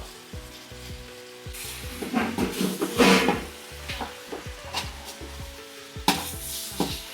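Kitchen food-preparation sounds: ingredients being stirred in a pan or bowl, with two louder stretches of hissing rustle. Background music plays underneath.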